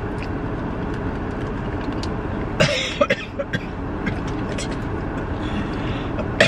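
Steady low road and engine rumble inside a moving car's cabin, with a short cough about two and a half seconds in and another near the end.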